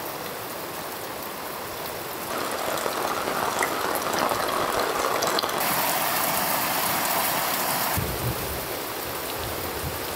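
Steady rain hiss, with a louder, harsher stretch of rushing noise from about two to eight seconds in.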